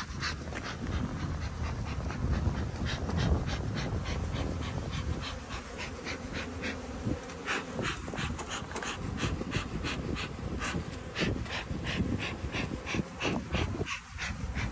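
A thermal fogger blowing oxalic acid vapour over bee hives for varroa mite treatment: a steady buzzing drone with rhythmic hissing puffs, about four a second.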